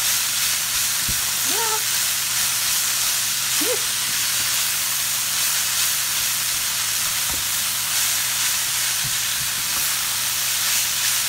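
Shredded cabbage and sausage sizzling steadily in a hot stainless steel skillet on medium heat while being stirred and turned with a silicone spatula, with a few light knocks.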